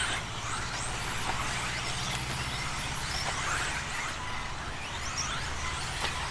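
Several radio-controlled 4WD off-road buggies racing, their electric motors whining up and down in pitch as they accelerate and slow through the corners. A steady low hum runs underneath.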